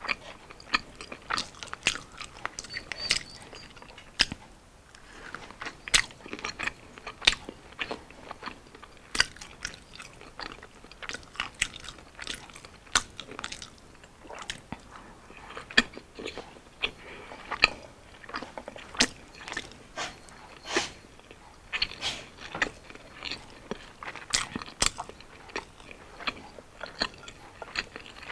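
Close-miked crunchy chewing and biting of deep-fried street food: batter-coated kwek-kwek, squid kalamares and fried beef tendon, with many sharp irregular crunches.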